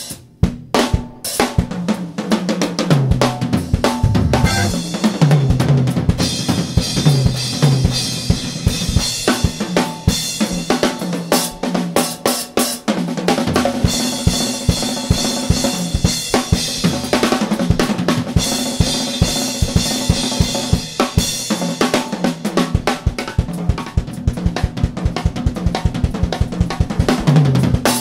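Live soul-jazz organ combo with the drum kit out front: a busy run of snare, bass drum, hi-hat and cymbals over a stepping bass line and held chords.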